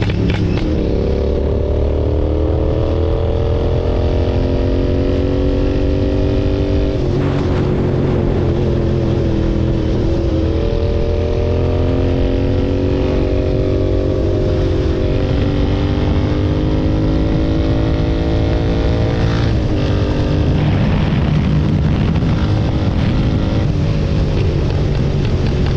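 Royal Enfield GT 650's parallel-twin engine running through an aftermarket SSP exhaust. Its pitch slides slowly down and then jumps back up, several times, with a few sharp crackles from the exhaust.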